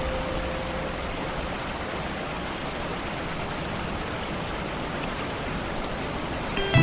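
Steady rain falling on a lake: an even hiss of drops on water, with no distinct patter or thunder. Music comes in suddenly at the very end.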